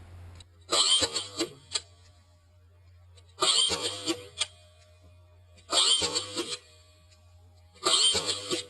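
Airsoft electric rifle firing four short bursts, each about a second long, a couple of seconds apart.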